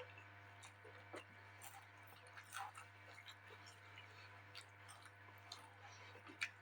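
Faint chewing of a person eating, with scattered small clicks and soft crunches, over a steady low hum.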